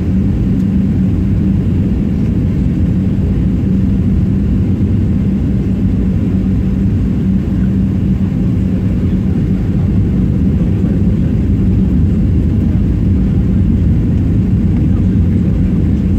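Airliner cabin noise: a steady, loud, low rumble of jet engines and airflow with a constant hum, rising slightly in the second half.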